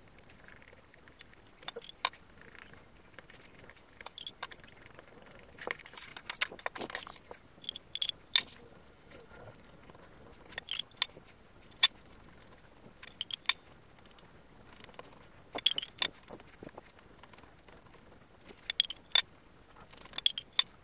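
Scratchy brushing and small clicks as a bristle glue brush is worked over a table tennis blade and then a rubber sheet's sponge. The sounds come in short irregular bursts every few seconds, some of them sharp clicks.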